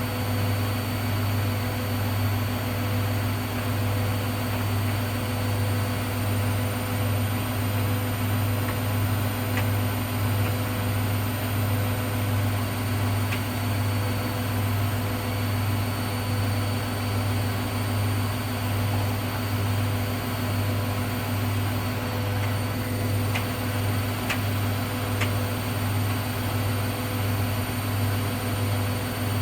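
Hoover Dynamic Next washing machine running on a cotton 40 programme: a steady low hum with a slight, even pulsing and no change in speed, with a few faint ticks near the end.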